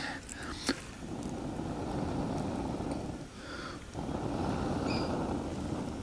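A person blowing steadily on smouldering tinder to coax a glowing ember into flame. There are two long blows with a short pause for breath between them.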